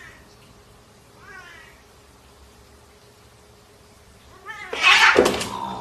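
A cat meowing: a faint short mew about a second and a half in, then a loud, longer meow near the end.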